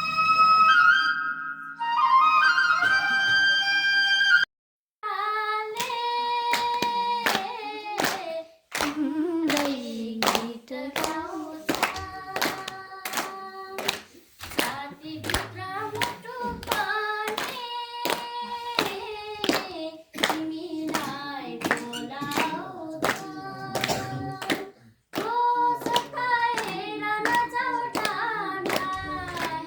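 Flute music for the first few seconds, then, after a brief break, singing with hand clapping in a steady beat of about two claps a second.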